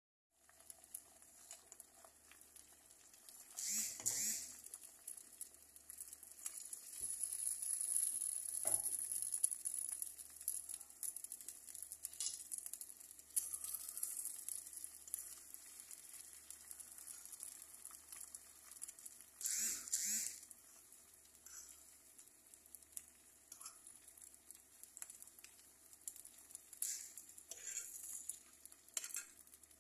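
Beaten eggs sizzling and crackling in a hot nonstick frying pan, with a utensil scraping and stirring through them; a few louder scraping strokes stand out, the strongest about four seconds in and again near twenty seconds.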